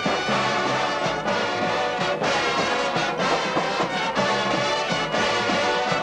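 Drum and bugle corps playing: the brass bugle line holding loud chords over the drum line, with sharp accented hits about once a second.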